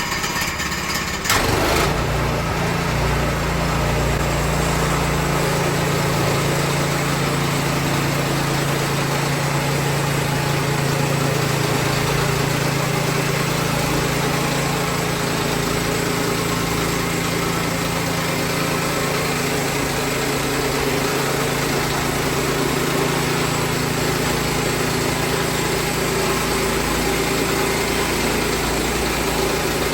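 Woodland Mills HM122 portable bandsaw mill's gas engine running steadily. About a second in, the sound changes suddenly and gets louder with a steady engine pitch, then holds.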